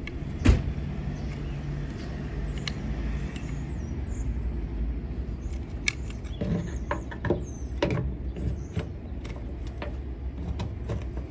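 Scattered sharp metallic clicks and knocks, loudest about half a second in and bunched again in the second half, from the 1949 Beetle's steel handbrake lever being handled against its mount on the floor-pan tunnel. Under them runs a steady low, engine-like hum.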